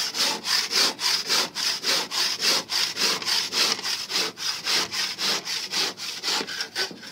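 Coarse-toothed hand saw cutting through a lightweight aerated concrete (AAC, hebel) block with rapid, even back-and-forth strokes, which die down near the end.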